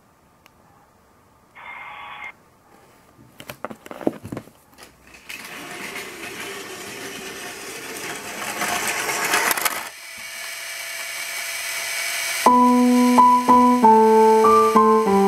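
A Plarail toy train running, its noise growing louder over several seconds, with a few clicks before it. Near the end an Electone organ starts playing a railway station melody, and the melody is the loudest sound.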